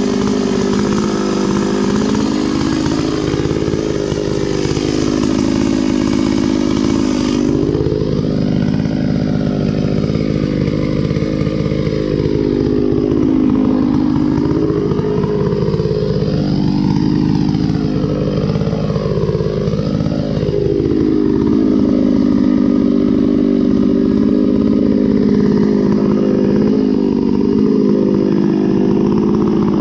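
Stihl 066 Magnum two-stroke chainsaw, its top end freshly rebuilt, running at full throttle while cutting hard hickory. The engine note dips and recovers several times in the middle as the chain loads in the cut, then holds steady near the end.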